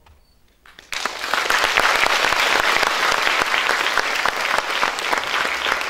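Audience applauding: after a quiet first second, dense clapping from many hands starts suddenly and goes on steadily.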